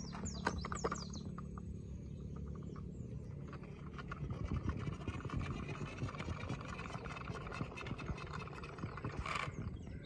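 Birds chirping near the start, over a steady low rattling and scraping crackle that runs on after the chirps fade.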